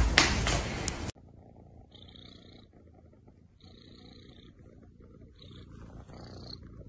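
A loud burst of noise for about the first second, then a kitten purring faintly up close, rising and falling in cycles of about a second.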